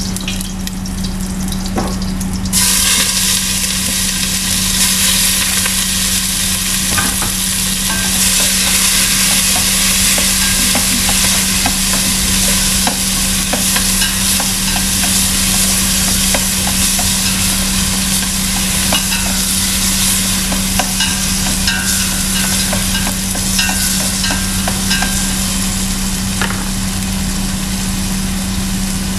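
Hot oil sizzling in a stainless-steel pot as tomato wedges fry. The sizzle jumps sharply louder about two and a half seconds in, as the wet tomatoes go into the hot oil, and stays loud while chopsticks stir and tick against the pot, over a steady low hum.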